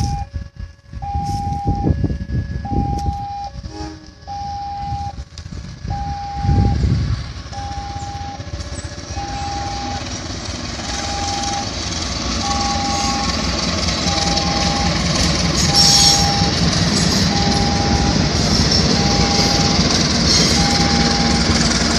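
Diesel-hauled passenger train approaching and passing, its locomotive engine and wheels on the rails building into a steady rumble from about nine seconds in. A repeating electronic warning beep, about one a second, runs throughout, typical of a level-crossing alarm. Wind buffets the microphone in the first few seconds.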